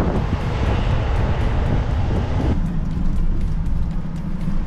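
Mercedes Sprinter 4x4 camper van driving through city traffic: a steady low engine and road hum, with a louder rushing noise on top that cuts off abruptly about two and a half seconds in.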